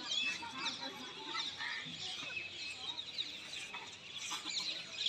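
Many birds chirping and chattering outdoors, short quick calls overlapping one another throughout.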